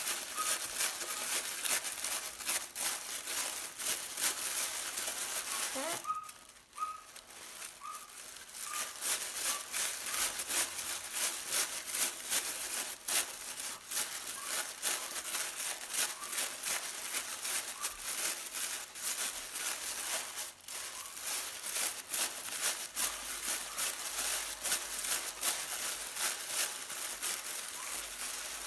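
Thin tissue paper rustling and crinkling as the pleated layers of a paper flower are pulled apart and lifted by hand, a dense run of small crackles that eases off for a moment about six seconds in.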